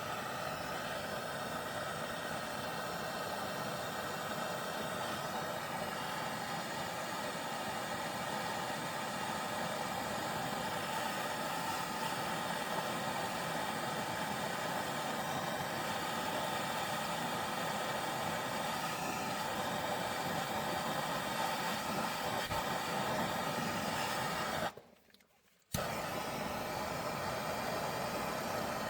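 Handheld blowtorch flame burning with a steady hiss, heating a seized steering pitman arm to free it. The sound cuts out for about a second near the end, then carries on.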